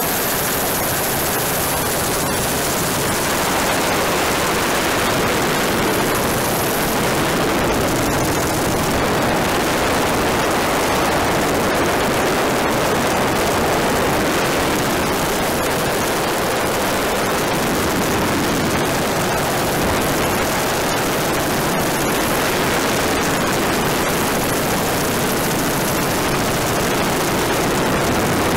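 Steady rushing noise of a helicopter in flight, heard from aboard: rotor wash and wind blowing over the microphone, with no distinct engine note.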